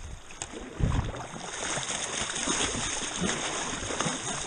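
River water rushing and splashing around kayaks on a shallow rapid, with a low thump about a second in.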